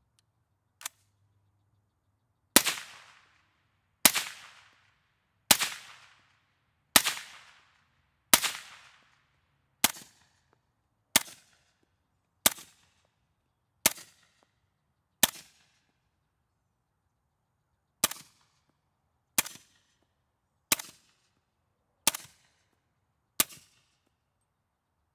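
Suppressed .300 Blackout Sig Sauer MCX short-barrelled rifle firing through a Sig SRD762-QD suppressor, about one shot every one and a half seconds. First come five supersonic shots, the loudest, each a sharp crack with a long fading tail. Then come five shorter, quieter Sig 220-grain subsonic shots, and after a short pause five Freedom Munitions Hush 220-grain subsonic shots, quieter still.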